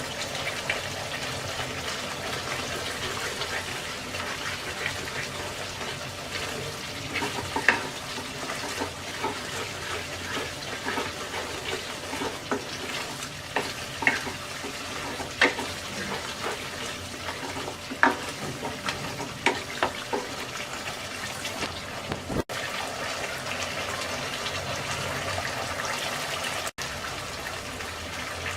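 Ground spice paste with water, frying and bubbling in oil in a pan as it is cooked down, a steady sizzle with many short sharp clicks and pops through the middle. The sound cuts out briefly twice near the end.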